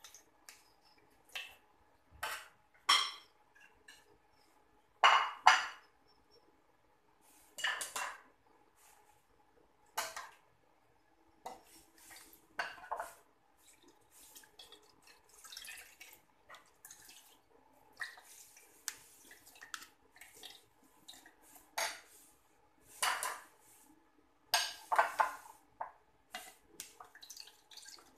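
Stainless steel spoon scraping and knocking against a plastic strainer and the rim of a pot as grated coconut is pressed to strain out coconut milk, in irregular strokes, some louder than others, with the milk dripping and trickling.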